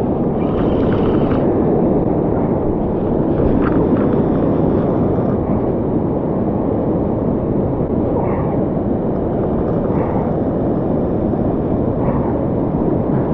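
Wind buffeting the microphone in a steady low rumble, over the wash of surf breaking on the beach.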